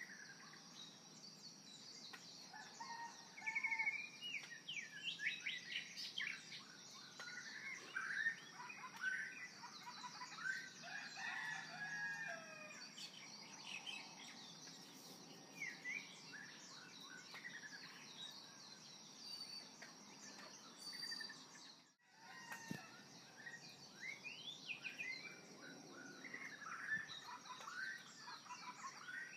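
Small birds chirping and twittering in quick, varied calls, over a steady high drone. The sound drops out briefly about two thirds of the way through.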